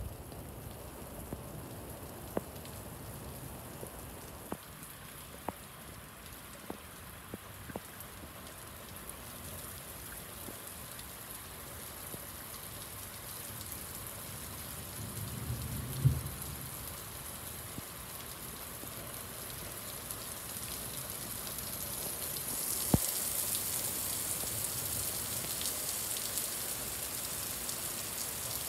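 Heavy rain falling steadily, hissing on pavement, with scattered sharp drops tapping close by. A brief low rumble ending in a thump comes about halfway through, and the rain grows louder and hissier near the end.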